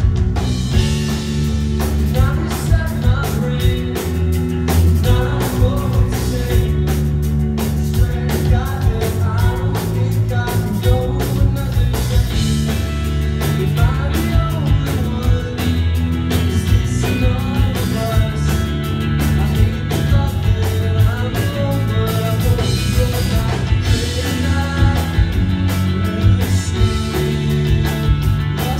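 Live rock band playing: electric guitars, bass guitar and drum kit, with a male vocalist singing over a steady beat.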